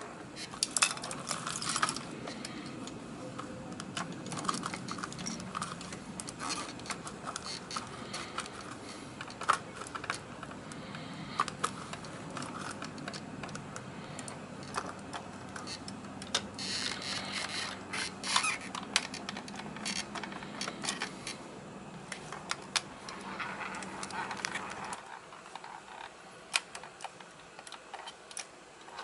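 Small plastic clicks and rattles from a hand-worked 1/34-scale die-cast front-loader garbage truck model as its arms lift a miniature dumpster and tip paper scraps into the hopper, with a few spells of paper rustling. A low background hum stops near the end.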